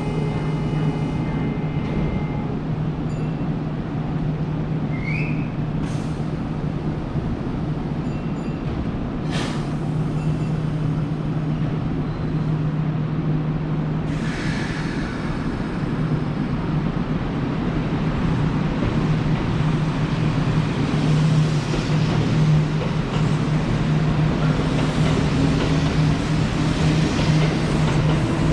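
Kintetsu electric train at the platform: a steady low hum from the standing train, with a few clicks and a hiss of air about halfway through. Near the end a motor whine rises steadily in pitch as the train starts to move.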